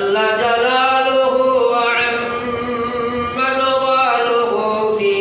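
A man's voice chanting in long, held, melodic phrases, amplified through a microphone.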